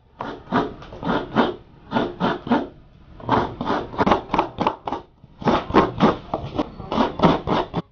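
Fresh coconut meat being grated by scraping a coconut half against the serrated blade of a seated coconut grater: rasping strokes about four a second, in runs with brief pauses.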